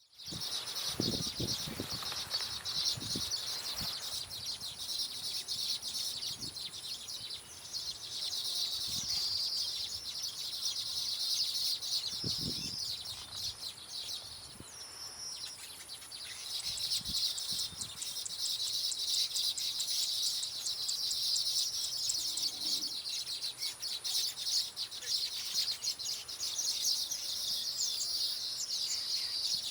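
Baya weavers chattering: a continuous, busy twittering of many high, rapid notes from several birds, easing briefly about halfway through. A few soft low thumps come through early on.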